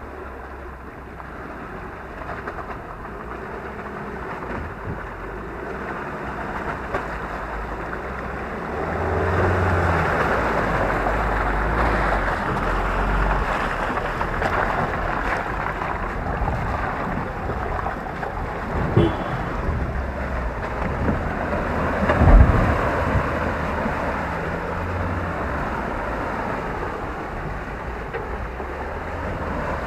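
A Ford Ranger 4WD on 33-inch mud tyres driving through a muddy water-filled bog hole: a steady rush of splashing water and churning tyres over the engine, growing louder through the first ten seconds. There is a sharp thump about 22 seconds in.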